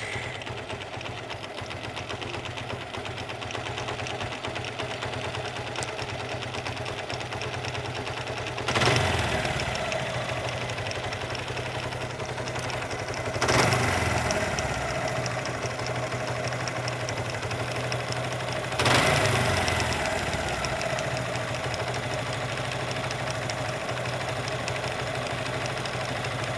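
Suzuki Gixxer single-cylinder engine idling with a clattering 'cat-cat' knock, revved briefly three times. The clatter sounds like a broken bearing or parts touching inside the engine.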